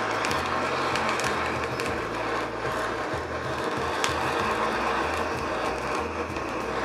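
Handheld blowtorch flame hissing steadily while it blisters and chars the skin of an Anaheim chili, with a few sharp ticks, one louder about four seconds in.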